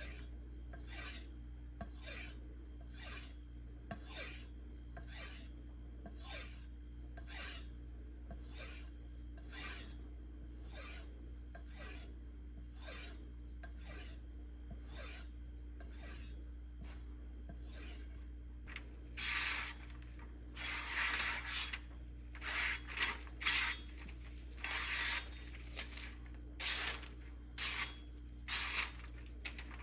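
Knife blade drawn in alternating strokes along a leather strop loaded with white compound: light, quick strokes about one and a half a second, turning into louder, longer strokes at a slower pace about two-thirds of the way through.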